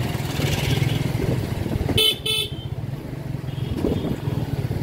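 Street traffic: a vehicle horn beeps twice in quick succession about two seconds in, over a steady low rumble of motor traffic.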